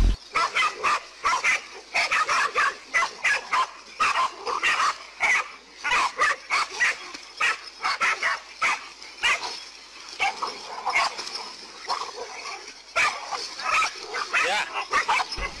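Several dogs barking and yelping at a king cobra in quick, overlapping bursts as they lunge at it.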